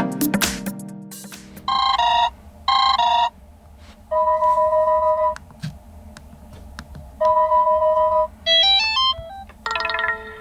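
Android ringtones on a Chuwi HiPad X tablet played one after another. One musical tone fades out, then two short chimes sound. A two-note electronic ring beeps twice, each time for over a second, then a quick rising run of notes plays and another tone starts near the end.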